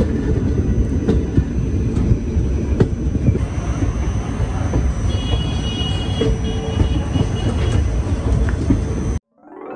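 Indian passenger train running, heard from an open coach doorway: a loud, steady rumble of wheels on the track and rushing air, with scattered clicks and a faint high squeal about halfway through. The sound cuts off abruptly just before the end, where music begins.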